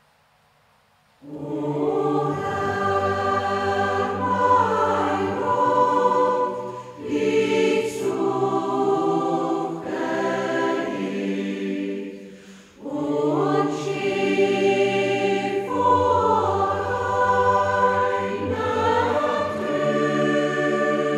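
Choir singing, starting about a second in after near silence, in long phrases with two short breaks and a low held note underneath some of them.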